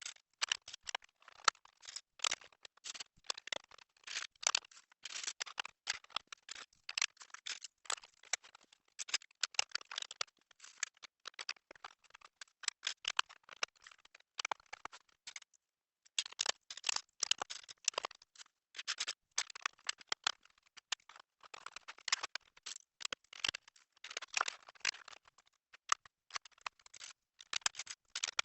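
Plastic Lego bricks clicking and rattling in quick, irregular succession as pieces are handled and snapped together, with a short pause a little past halfway.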